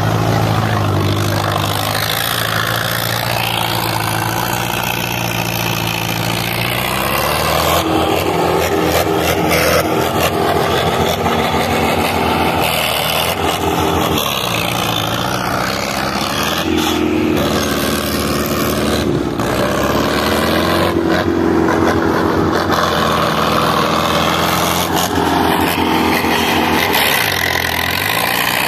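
Indofarm tractor's diesel engine working hard under load, its note stepping up a few seconds in and then holding high with small rises and falls.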